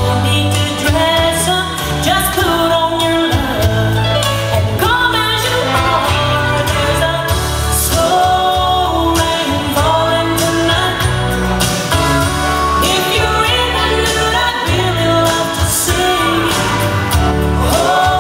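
A song with a singing voice over a steady beat, with guitar and bass, in a country-pop style.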